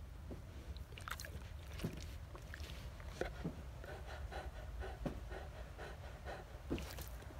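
Newfoundland dog breathing and making small wet mouth clicks and smacks close to the microphone, faint and irregular, over a low rumble.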